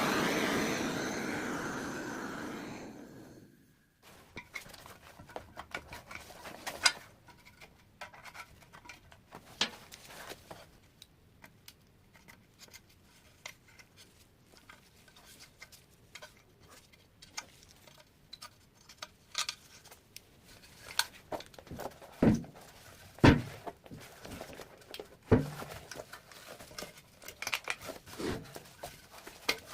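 A loud, dense sound fades away over the first three or four seconds. After it come scattered light clicks, taps and scrapes of small tools and parts being handled, with a few sharper knocks in the last third.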